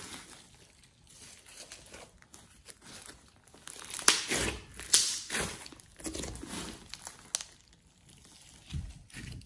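Slime being squeezed and pressed by hand, squishing and popping in irregular bursts, loudest about four to five seconds in.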